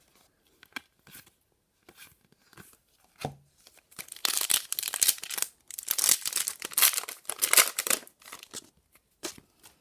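A foil booster pack wrapper being torn open and crinkled, loudest for about four seconds in the middle, with light clicks and taps of card handling before and after.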